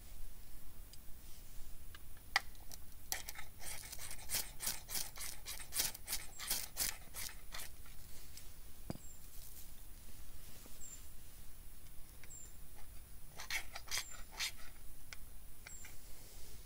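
Ferrocerium fire steel struck repeatedly with a scraper to throw sparks onto tinder: a quick run of rasping scrapes from about three to seven seconds in, and a few more near the end. Short high bird chirps recur in the background.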